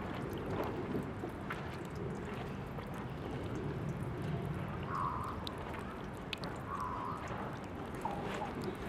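Tap water from a drinking-fountain faucet running in a thin stream and splashing steadily, with many small irregular drips and splashes.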